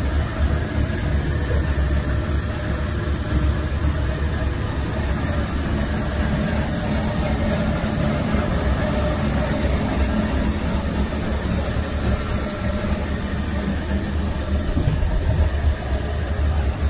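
Electric box fan and the demonstration generator rig running under load: a steady low hum with a broad whir over it.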